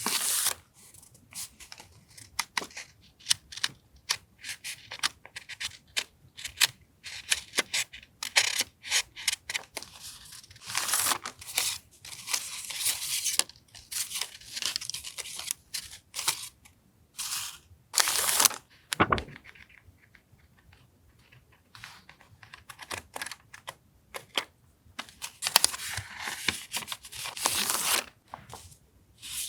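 Paper and packaging being handled up close: rustling and tearing, with scattered sharp taps and clicks in irregular bursts and short pauses.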